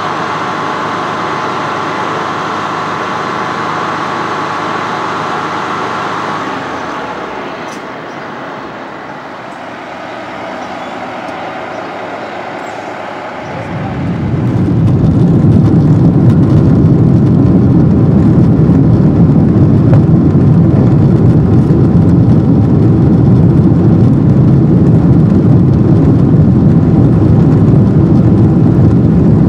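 Boeing 777-200 jet engines: first a steady high whine heard from outside the aircraft, which fades about a quarter of the way in. About halfway through, a loud, steady low roar comes in suddenly, the engines at take-off thrust heard from inside the cabin.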